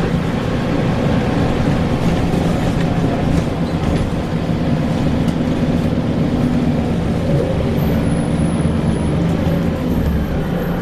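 Scania L94UB single-deck bus running steadily, a constant engine and drivetrain drone with no break.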